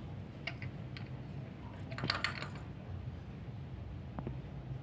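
Metal clicks and rattles of a spark plug wrench on a spark plug as it is unscrewed and drawn out of the air-cooled V-twin's cylinder head of a Benelli Patagonian Eagle. The loudest cluster of clicks comes about two seconds in, over a low steady hum.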